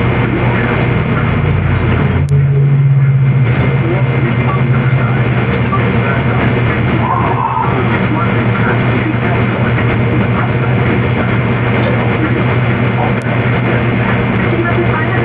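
Steady low hum under a loud, dense hiss. There is a faint click about two seconds in, where the hum briefly gets louder, and another faint click near the end.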